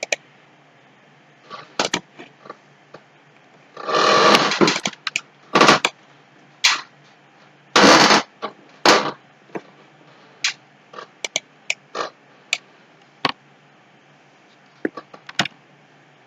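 Scattered sharp clicks of a computer mouse, with two louder, rough, scrape-like noises of about a second each, a few seconds in and again about halfway through.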